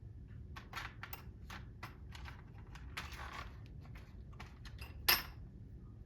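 Small metal clockmaker's tools clicking and clinking as they are picked up, sorted and set down, a string of light taps with one sharper click about five seconds in.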